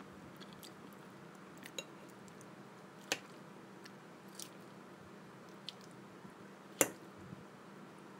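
A fork stirring and lifting a dressed Thai pork-sausage salad on a plate: soft squishing of the salad with a few sharp clicks of the fork against the plate, the loudest about seven seconds in.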